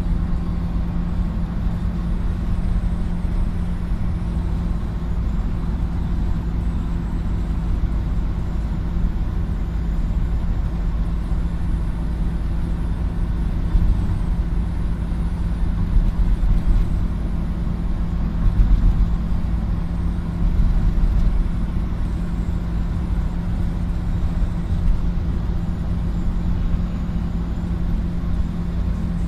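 Car cabin noise while driving: a steady low rumble of tyres and engine with a constant hum underneath, swelling a little louder a few times about halfway through.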